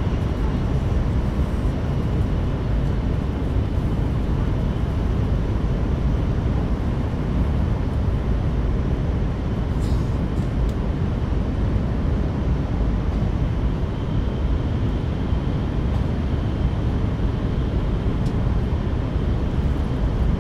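Steady low rumble of an N700S Shinkansen train running at speed, heard inside the passenger cabin, with a faint steady whine above it.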